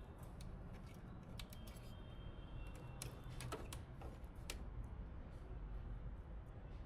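Scattered light clicks and taps from PC parts being handled and fitted, over a low steady hum.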